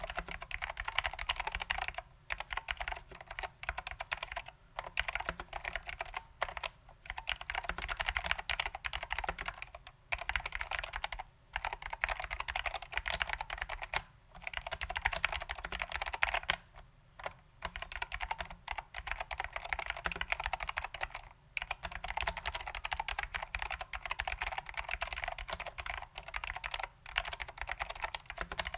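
Fast continuous typing on a custom 60% mechanical keyboard with lubed SKCM Salmon ALPS switches and vintage ALPS doubleshot keycaps: a dense stream of key clicks, broken by brief pauses every few seconds.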